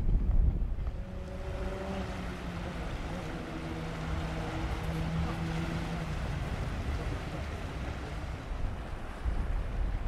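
Small waves washing over a rocky shore, with wind buffeting the microphone, heaviest in the first second and again near the end. A low steady hum sounds from about one and a half to six seconds in.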